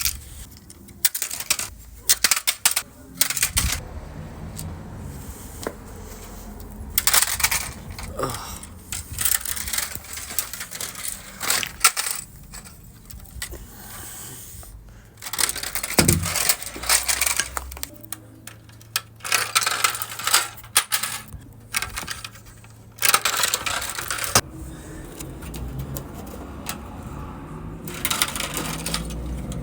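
Irregular metallic clinks, knocks and clatter from hard objects being handled and struck, coming in uneven clusters with short lulls between.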